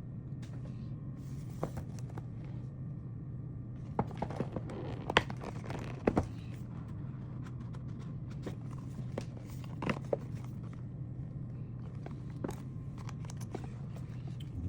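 Packaging of an Insta360 GO3S camera being handled and opened: scattered taps, knocks and scrapes over a steady low hum.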